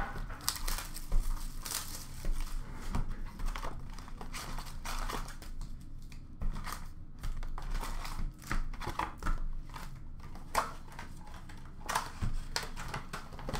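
A 2020-21 Upper Deck Extended hockey card box being torn open and its foil packs pulled out and spread, with crinkling wrappers and tearing cardboard in irregular rustles and crackles.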